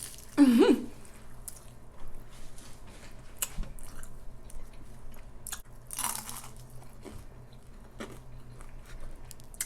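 Close-miked biting and chewing of crunchy thin-crust pizza, with scattered sharp crunches. A short voiced sound that rises and falls in pitch comes about half a second in, and another comes about six seconds in.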